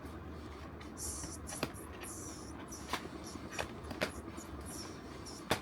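Cardboard packaging of a blind-box set being handled and pried at: short scratchy rustles and a few sharp clicks and taps, the loudest near the end.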